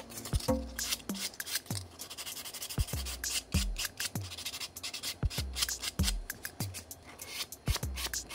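Sandpaper rubbed back and forth by hand over the edges of a thin styrene plastic model hood, a quick rasping scratch. Behind it is background music with a steady, deep drum beat.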